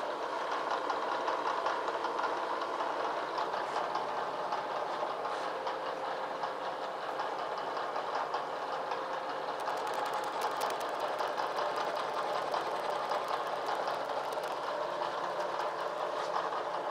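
Vertical milling machine running, its end mill taking a steady, even cut across the top of a metal locomotive part.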